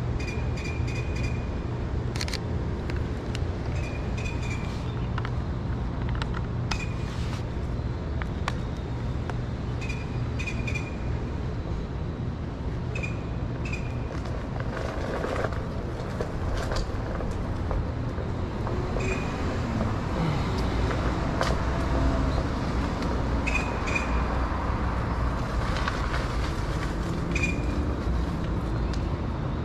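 Street ambience heard while riding an electric one-wheeled board: a steady low rumble with scattered short clicks and small chirps, and a passing vehicle swelling up in the second half.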